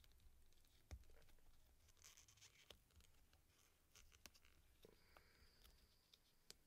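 Faint handling sounds of a silicone mold being flexed and peeled off a cured resin casting: scattered small clicks and soft rubbing and scraping.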